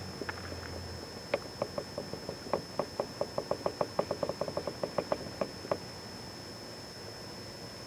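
A quick, uneven run of light knocks or taps, about five a second, lasting about four seconds and then stopping.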